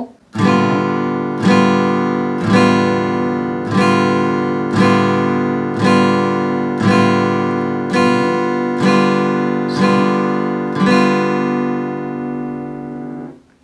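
Acoustic guitar strumming a G7 chord, one strum about every second, eleven in all, the last one left ringing for a couple of seconds before it is damped.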